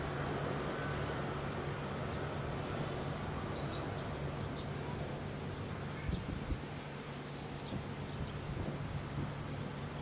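Steady low drone of a rice combine harvester's engine working the field, with short high bird chirps scattered over it.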